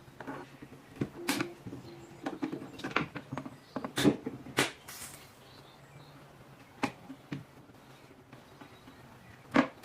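Irregular taps, clicks and knocks of churn parts being handled during restoration work, with the loudest about four seconds in and again near the end.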